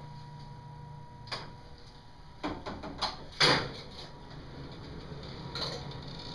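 Clicks and clunks of a ceiling-mounted X-ray tube being unlocked and pushed up out of the way, the loudest about three and a half seconds in. A steady low hum stops about two seconds in.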